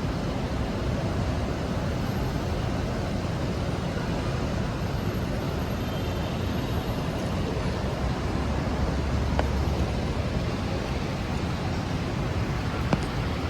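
City street traffic noise, a steady hiss and hum of passing vehicles. A low rumble swells about nine seconds in, and a sharp click comes near the end.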